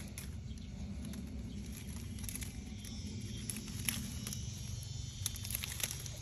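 Leaves of young macadamia seedlings rustling and crackling as a hand brushes through them, with a few sharper crackles standing out over a low steady rumble.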